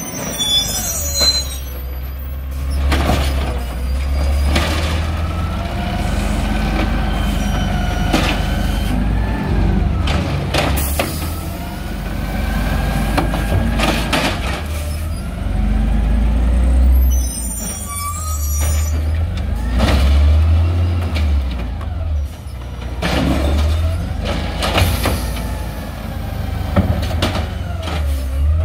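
Peterbilt 320 natural-gas garbage truck running and revving while its Amrep automated side-loader arm grabs and dumps recycling carts, a hydraulic whine rising and falling with the revs, with knocks from the carts and arm. The air brakes hiss twice.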